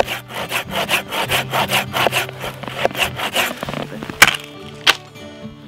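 Hand saw cutting through the trunk of a small dead standing pine with rapid strokes, about four a second, then two sharp cracks as the cut trunk snaps and is pushed over. Acoustic guitar music plays underneath.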